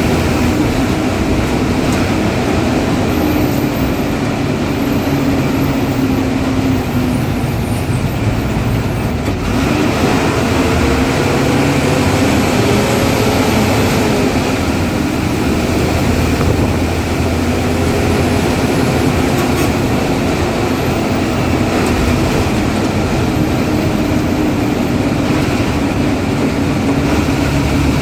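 Ashok Leyland diesel bus engine running hard at road speed, loud and steady under heavy road noise. Its engine note sinks and climbs a few times as it eases off and accelerates.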